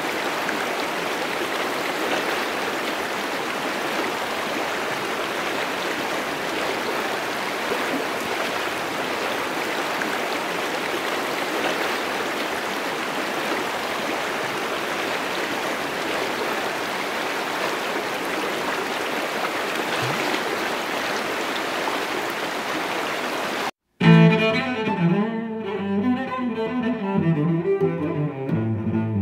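Steady wash of a shallow, fast-running creek rushing over rocks and riffles. About four-fifths of the way through it cuts off abruptly and music with bowed strings begins.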